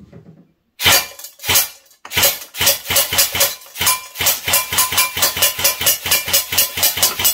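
Double Eagle M920A airsoft electric rifle on an 11.1 V LiPo firing 0.20 g BBs into a paper target in a cardboard box. Two single shots come a bit under a second in, then from about two seconds in a fast, steady string of shots with the BBs cracking into the target, stopping near the end.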